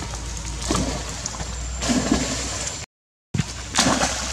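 Young macaques splashing in shallow water over a steady wash of moving water, with a splash about 0.7 s in, another around 2 s in, and a bigger one near the end. The sound drops out to silence for half a second just before 3 s.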